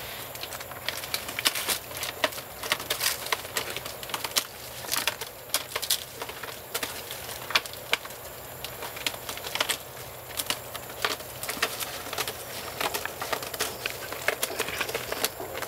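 Northern tamandua breaking into a termite nest with its claws and snout while feeding: irregular crackling and crunching of the crumbly nest material, several sharp snaps a second.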